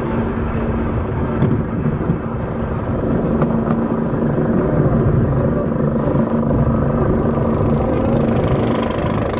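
Balder wooden roller coaster train heard from on board: a steady, loud mechanical rumble and rattle with a constant hum running under it.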